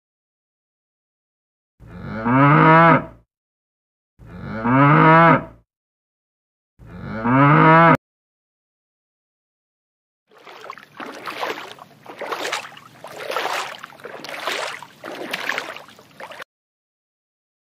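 Cow mooing three times, each moo a low pitched call about a second long. After a pause, a rushing noise with no pitch that swells and fades about once a second.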